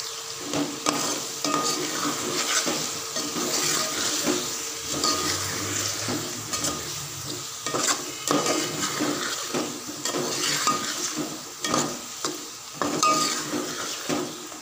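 Metal slotted spoon stirring chicken, tomatoes and ground spices frying in oil in a pot, scraping and clinking against the pot again and again over a steady sizzle: the masala being mixed and fried (bhunai).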